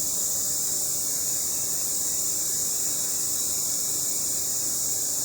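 Steady high-pitched hiss with no distinct animal call or other event.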